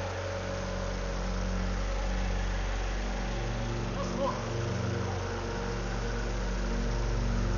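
Small pressure washer engine running steadily on its own with the choke open, its tone swelling and easing slightly from moment to moment.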